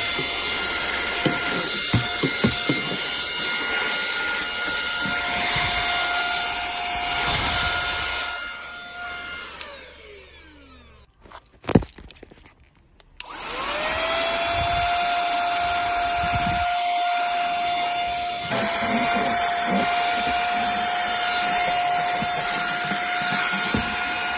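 360 cordless handheld car vacuum cleaner running with a steady high motor whine, with a few clicks in the first few seconds. About ten seconds in it is switched off and winds down, there is a click, and a couple of seconds later it is switched back on, spins up and runs steadily again.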